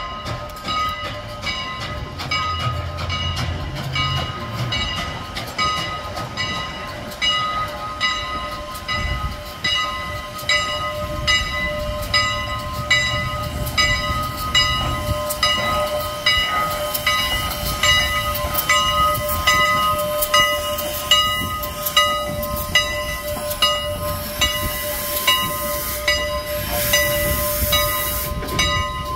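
Strasburg Rail Road No. 89, a 2-6-0 steam locomotive, arriving at slow speed with its bell ringing steadily, about one and a half strokes a second. A loud hiss of steam joins in near the end as the engine comes alongside.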